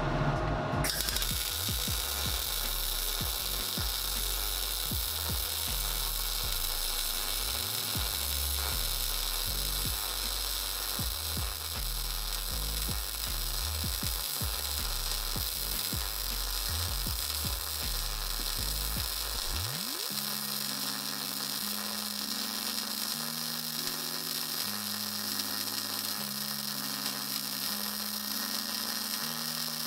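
MIG welding arc on thick steel plate, fed with 0.8 mm SG2 steel wire from a synergic MIG welder. The arc strikes about a second in and then runs as a steady buzzing hiss.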